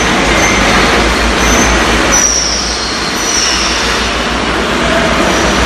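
Loud, steady industrial din of factory machinery, with a few brief high-pitched squeals over it.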